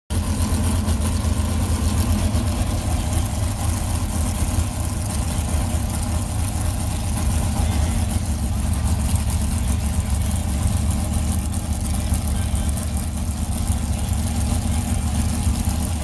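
Engine idling steadily, an even low rumble with no revving.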